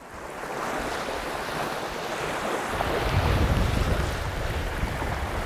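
Small waves washing up onto a sandy beach, with wind rumbling on the microphone from about halfway in.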